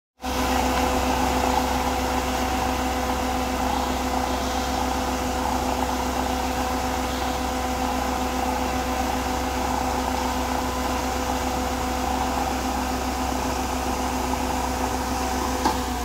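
Aimix concrete mixer pump running steadily, a constant machine drone with a steady hum and low rumble, and a single click near the end.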